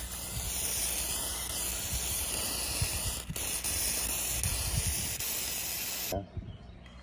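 Water jet from a garden hose nozzle spraying onto a metal exhaust, rinsing off stock paint loosened by an oven-cleaning degreaser. An even, loud hiss with a very brief break about three seconds in, cutting off suddenly about six seconds in.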